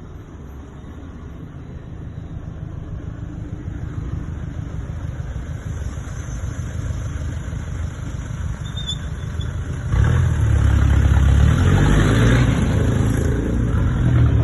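Fiat Toro's 1.3 turbo four-cylinder engine and road noise as the pickup drives, growing gradually louder, then jumping sharply louder about ten seconds in.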